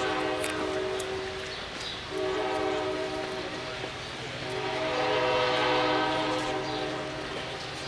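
Horn of an approaching MBTA commuter rail train sounding three long blasts: the first already sounding, then two more after short breaks about two and four seconds in. Each blast is a steady chord of several tones.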